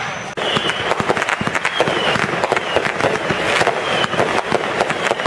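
Aerial fireworks crackling: a dense, rapid, irregular run of small sharp pops from crackling stars, with a brief dip in loudness about a third of a second in.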